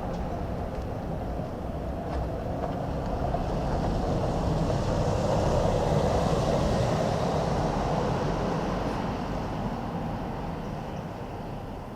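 Distant rumble of a Boeing 747 airliner cruising at high altitude. It swells to its loudest about halfway through and fades toward the end.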